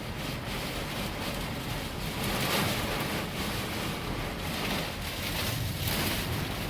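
Heavy rain and strong wind beating on a truck, heard from inside the cab; the gusts swell and ease twice.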